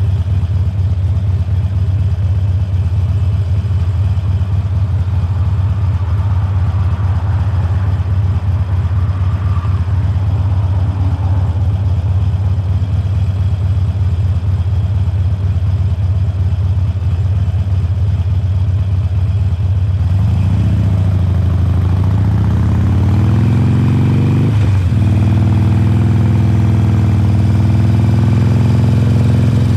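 A 2020 Harley-Davidson Forty-Eight's 1200 cc air-cooled V-twin with Khrome Werks slip-on mufflers idling steadily for about twenty seconds, then revving up as the bike pulls away. The pitch drops briefly once at a gear change and then climbs again.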